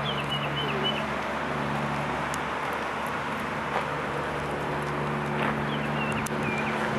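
Steady low motor hum, with a bird's short chirping call near the start and again near the end.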